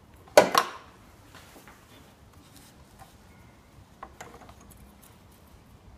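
Two sharp knocks in quick succession about half a second in, then a few lighter clicks about four seconds in: hand work on the crankshaft pulley and drive belts of a Kia Picanto engine.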